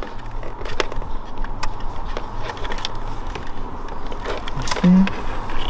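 Plastic wiring-harness connectors and cables being handled and plugged into a remote-start control module, giving scattered sharp clicks and rustling over a steady low hum. A short low tone sounds about five seconds in.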